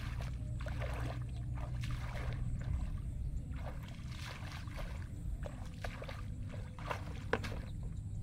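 Footsteps wading through shallow water and wet grass, a short splash with each step, over a low steady rumble.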